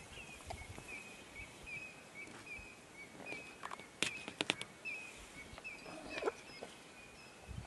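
Outdoor bush ambience with a steady series of short high chirps, about two a second. A leopard and a warthog grapple on dry ground, giving a few sharp scuffling clicks about four seconds in and again about six seconds in.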